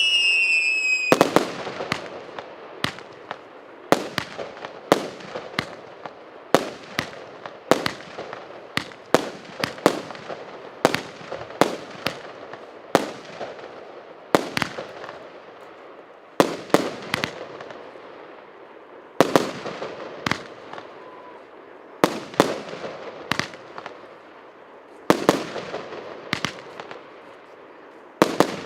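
Consumer firework battery (cake) firing shot after shot: sharp bangs about once a second, some in quick pairs, each trailing off in an echoing crackle, with a few short pauses. A falling whistle sounds briefly near the start.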